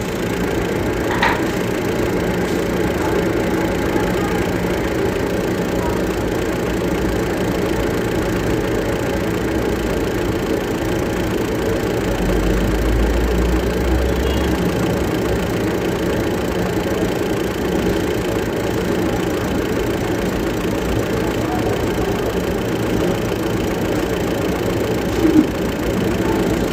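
Hino diesel truck engine idling steadily, with a brief deeper rumble about twelve seconds in. The number-4 injector nozzle has been tightened down after blowing past its o-ring, but the o-ring still leaks diesel.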